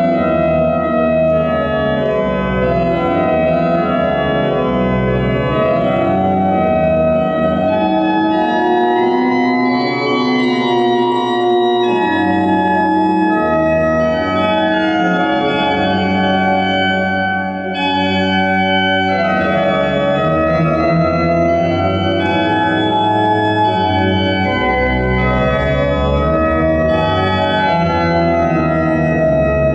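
Digital Hauptwerk organ, a sampled pipe-organ sound, playing full sustained chords over deep bass notes, the chords changing every second or two.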